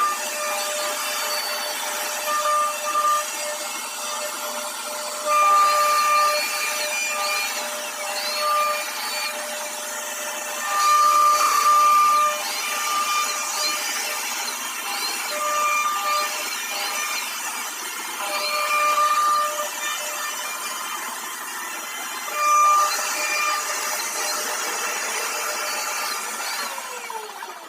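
CNC router carving a design into a wooden door panel: steady cutting noise with a whine that comes and goes, louder in short spells.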